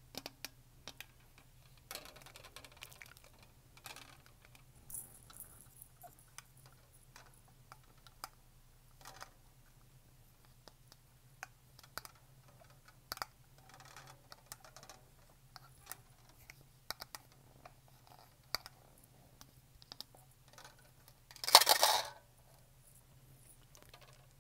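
Long fingernails tapping and scratching on a black plastic shaker bottle: a scatter of light, irregular clicks and taps. Near the end there is one louder noisy burst lasting under a second.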